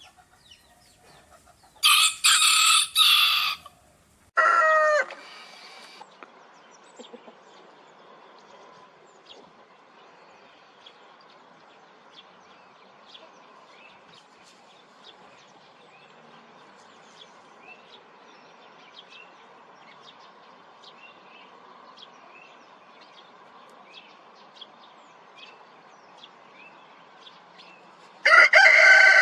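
Rooster crowing: a loud crow about two seconds in that ends in a falling drawn-out note, then a long quieter stretch with faint short bird calls, and another loud crow starting near the end.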